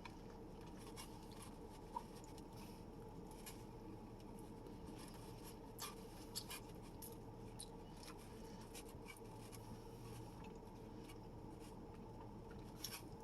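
Faint chewing of sesame chicken, with small scattered clicks and mouth sounds of eating, over a faint steady hum.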